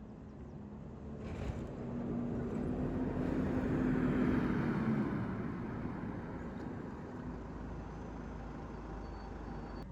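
Passenger train running along the track, heard from inside the carriage: the rumble swells to a peak about four seconds in, then eases off, over a low steady hum.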